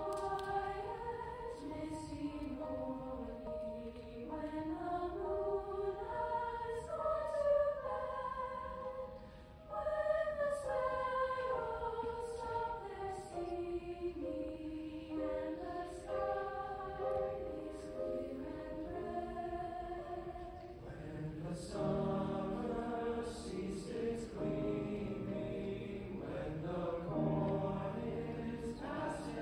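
A mixed choir singing with piano accompaniment. The opening phrases are a single sung melodic line, and about two-thirds of the way through lower voices join and the sound fills out into full harmony.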